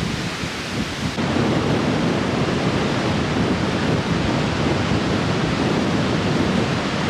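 Strong wind blowing over the microphone: a loud, steady, low rushing noise.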